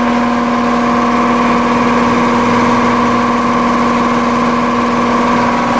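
A machine running steadily: an even, loud hum with one strong low tone and several higher tones that do not change.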